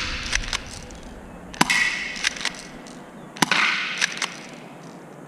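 FNS-9 replica airsoft pistol firing single shots at targets: three sharp cracks about two seconds apart, the last at the very end, with fainter clicks in between.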